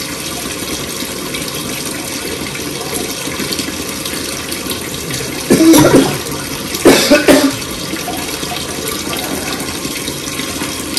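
A steady rushing hiss, with two brief louder sounds a little past halfway.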